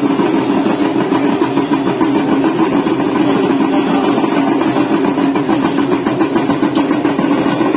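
Evening Ganga aarti ceremony: a loud, steady, dense din of devotional music and percussion, without a break.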